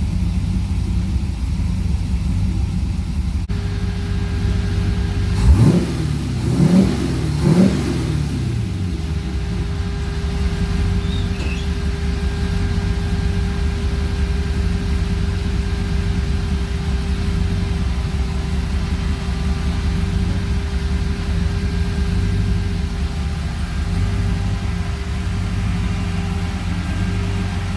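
Carbureted Chevy 6.0 V8 running at a steady idle, blipped three times in quick succession about five seconds in, each rev rising and falling back before it settles to idle again.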